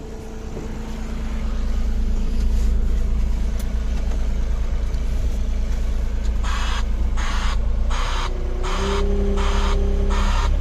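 A machine running with a steady low rumble. About two-thirds of the way in, a rhythmic hissing pulse starts, repeating roughly every 0.7 s, and a steady hum joins it.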